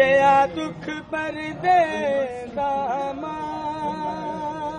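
A voice chanting a nauha, a Shia lament for Karbala, in a drawn-out melody. It starts loud on sliding, bending notes, then holds one long note for the last second and a half.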